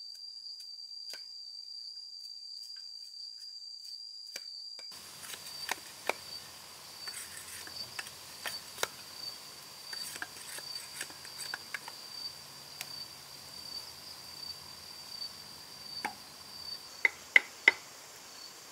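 Machete blade striking and shaving a wooden stake, a run of scattered sharp chops, over a steady high-pitched insect drone. Near the end come three loud, sharp knocks close together.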